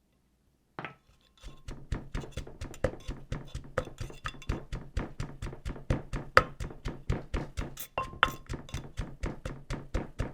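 Pestle pounding tomatoes, hot pepper and cilantro in a mortar: a fast, even run of knocks, about four or five a second, starting after a second or so of silence.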